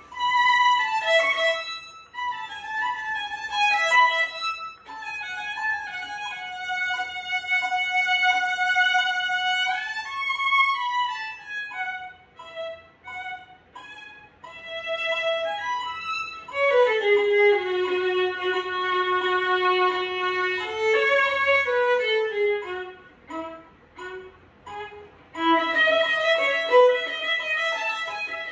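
Solo violin played unaccompanied: runs of quick notes alternate with long held notes, with a few short breaks between phrases.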